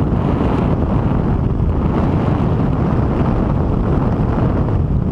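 Loud, steady wind buffeting the microphone, with the low rumble of a boat running at speed.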